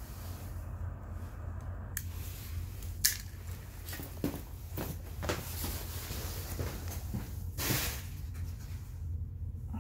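Handling noises of small wires and a plastic connector: scattered clicks and knocks, the sharpest about three seconds in, and a rustle near the end, over a steady low hum.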